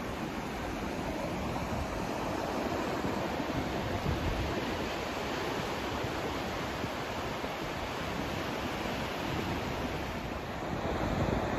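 Steady white-noise track: an even rushing hiss with no tones or rhythm, swelling slightly near the end.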